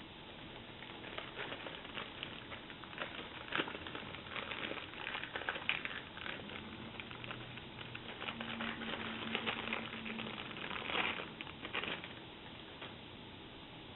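Irregular crinkling and light clicking from hands handling a wiper blade rubber refill and its packaging, busiest through the middle and dying away near the end.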